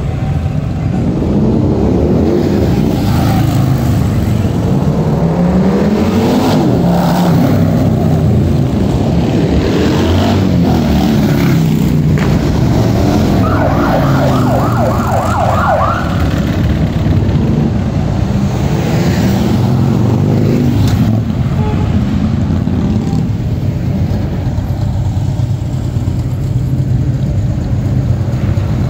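Harley-Davidson V-twin motorcycles riding past one after another, their engines rising and falling in pitch as each goes by. About halfway through, a siren gives a short burst of rapid yelps for roughly two seconds.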